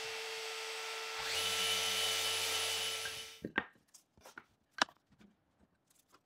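Random orbital sander running on wood, with a steady whirr and hiss, then switched off about three and a half seconds in. A few light wooden clicks and taps follow as thin wooden strips are handled on the bench.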